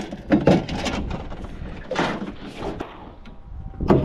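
Anchor and its rope being hauled aboard and set down in an aluminium dinghy: a run of sudden metal clunks and knocks against the hull, with scraping in between.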